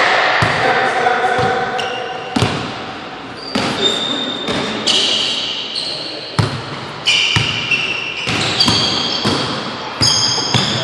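Basketball bouncing on a hardwood gym floor, a dozen or so irregular thuds, with sneakers squeaking in short high chirps and players' voices, all echoing in a large hall.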